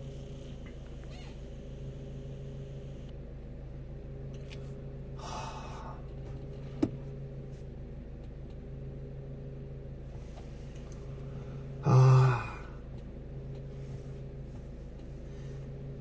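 Car engine idling steadily, heard from inside the cabin as a low hum. About 12 s in comes a short, louder cry, and a fainter short sound about 5 s in.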